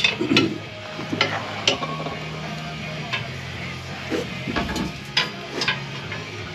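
A run of irregular metal clinks and knocks from hand tools and exhaust parts being worked on, over steady background music.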